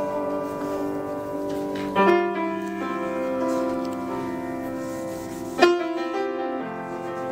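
Piano playing slow sustained chords with the notes left to ring, a new chord struck about two seconds in and another later on.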